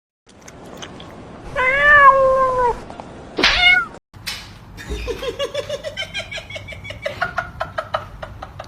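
Cat meowing: one long drawn-out meow, then a short, sharply rising one. After a brief break comes a fast run of short repeated calls, about five a second.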